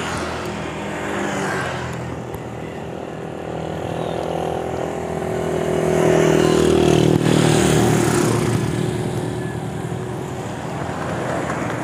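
A motorcycle engine comes up and passes close by, loudest about six to eight seconds in and dropping in pitch as it goes, over a steady rush of wind and road noise from riding a bicycle.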